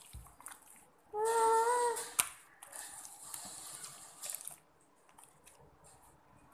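Clear slime being kneaded and stretched by hand, making wet, sticky squelching and crackling. About a second in there is a short squeaky tone lasting under a second, the loudest sound, followed by a sharp snap.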